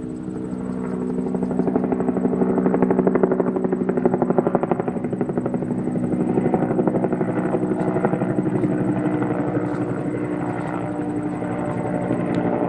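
Battery-operated toy vehicle running, its small motor and gears whirring steadily with a fast pulsing beat.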